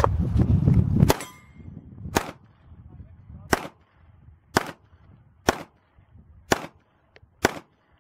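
A string of seven pistol shots at steel plates, roughly one a second, the first carrying a brief ringing tone. A loud rushing noise stops sharply with the first shot, about a second in.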